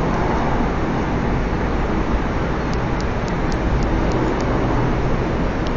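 AREX airport express train running, heard from inside the carriage: a steady rumble of the train in motion, with a quick run of faint high ticks about halfway through.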